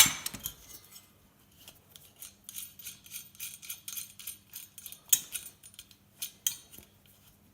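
Metal chandelier parts clinking and clicking as they are handled and worked apart: a sharp metallic clack at the start, then scattered light taps and clicks.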